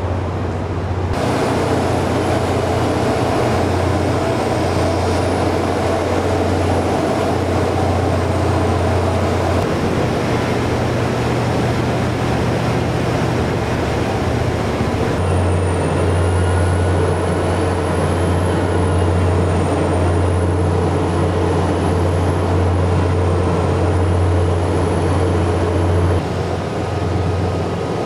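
Steady deep hum of heavy machinery during the rocket's rollout to the launch pad, with a faint high whine that wavers up and down. The sound changes abruptly a few times.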